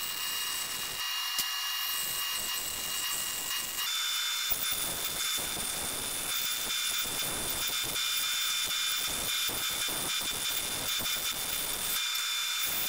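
Bandsaw running and cutting through a thick hickory board, a steady mechanical hiss and whine of the blade in the wood, with a thin high tone that steps up slightly in pitch about four seconds in.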